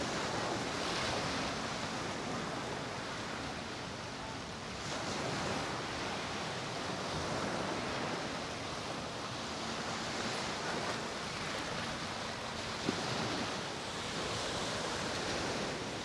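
Ocean surf: waves breaking and washing up on a beach, the rush swelling and easing every few seconds. A single brief click late on.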